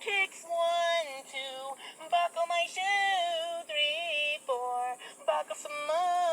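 A high-pitched, electronically processed singing voice over a song, in short sung phrases.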